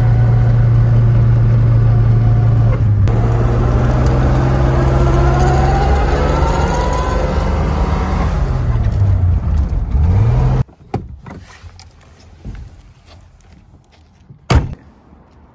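1937 Oldsmobile F37's straight-six engine running as the car drives, heard from inside the cab, with a whine rising in pitch midway and the engine note dipping and climbing back. About two-thirds in the sound cuts to quiet, with a few clicks and one sharp click near the end as a car door is worked.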